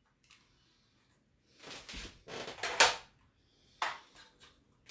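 A few knocks and scrapes of records being handled and set down, the loudest a little before the middle, with quieter ones after it.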